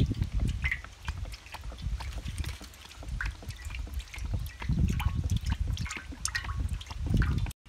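Cooking oil poured in a thin stream into a large empty aluminium pan, trickling and splashing with many small irregular ticks, over a gusty low rumble. It cuts off suddenly just before the end.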